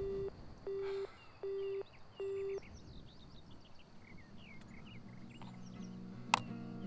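Four short identical beeps from a mobile phone, evenly spaced about three-quarters of a second apart: the call-ended tone after the other side hangs up. Faint bird chirps follow. Soft guitar music fades in near the end, with one sharp click.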